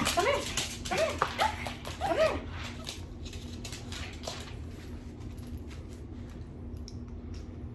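A small dog whining in excitement: about four short whines that rise and fall in pitch in the first two seconds or so, then quieter with a few light clicks.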